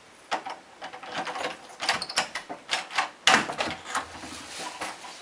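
A door's lock and knob rattling and clicking as the door is unlocked and opened, in a run of irregular sharp clicks with the loudest a little over three seconds in.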